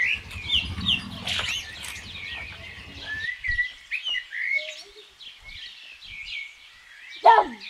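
Many small birds chirping together: a dense chorus of short, high, quick calls. A low rumble sits under it for the first three seconds.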